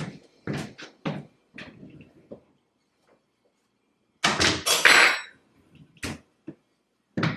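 Kitchen handling sounds: a run of light footsteps and knocks, then a clatter about four seconds in as a board is taken from the counter, a couple of light knocks as it is laid on the island, and a single knock near the end.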